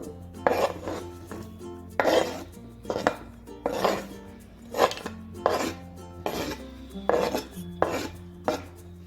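A spoon clinking and scraping against a cooking pot about a dozen times at an irregular pace, as grated carrot is tipped into the boiled milk.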